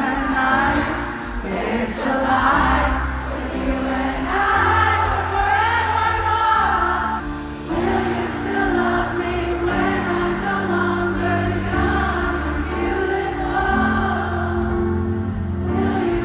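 Music with choir-like singing over sustained chords and long held bass notes.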